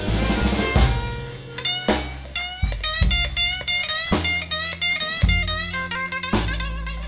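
Live blues band playing an instrumental passage, an electric guitar leading with single notes bent up in pitch over walking bass and drums.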